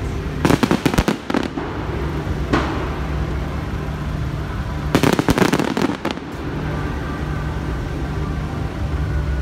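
Aerial fireworks bursting: a rapid cluster of sharp bangs about half a second in, a single bang a couple of seconds later, and a second cluster about five seconds in. A steady low rumble runs underneath.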